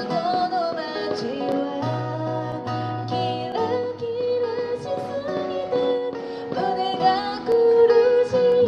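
Live acoustic song: guitar accompaniment with a wavering, held melody line over it and a steady low bass note.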